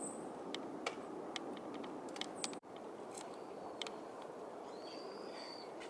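Faint steady rush of ocean surf, with scattered small clicks and a few short high chirps.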